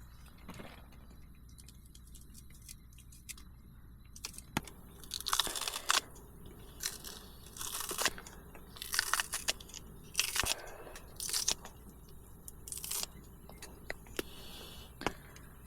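Plastic food packaging being handled and torn open, crinkling in short, irregular bursts, most of them in the second half.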